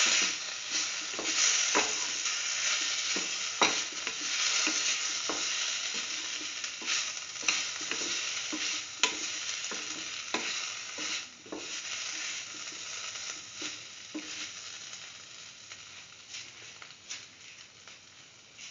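Yam and chayote pieces sizzling in oil in a steel pan while a spoon stirs them, with irregular scrapes and clicks of the spoon against the pan. The sizzle slowly dies down toward the end.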